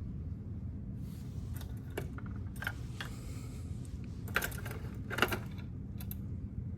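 A few bursts of light clinking and jingling, like keys or small metal parts being handled, over a steady low hum. The two loudest bursts come about four and five seconds in.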